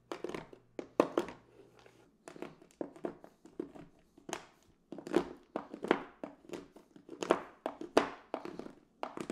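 Kitchen knife chopping a bar of milk chocolate on a wooden cutting board: repeated, irregular knocks of the blade cutting through the chocolate and striking the board, some coming in quick pairs.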